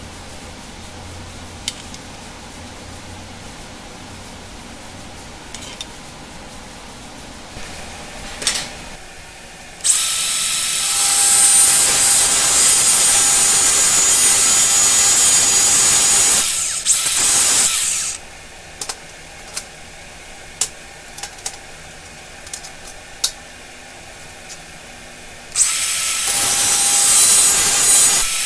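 A handheld power tool working into steel bed-frame angle iron, with a high, hissing whine. It starts about ten seconds in and runs for about six seconds, stops, and starts again near the end. Light clicks and taps are heard in the quiet stretches.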